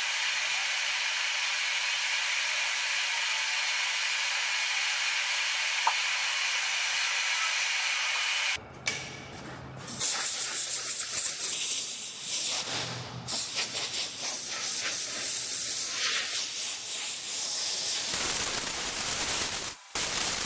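Steady hiss of compressed air, which cuts off abruptly about eight seconds in. After that comes uneven workshop noise with brief low hums and short gaps.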